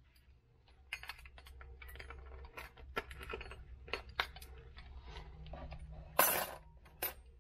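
Small clinks and taps of a metal measuring spoon against a jar of glitter flake and plastic cups on a workbench, scattered over a faint low hum, with one louder clatter about six seconds in.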